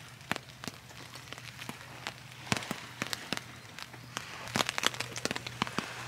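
Rain falling on a nylon tent fly, heard from inside the tent: scattered, irregular taps of individual drops on the fabric, thicker and louder in the second half.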